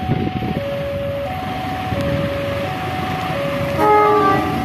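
A warning alarm alternating steadily between two tones, low then high, over a low rumble. About four seconds in, an approaching CC 201 diesel locomotive sounds a short horn blast that dips in pitch and is the loudest sound.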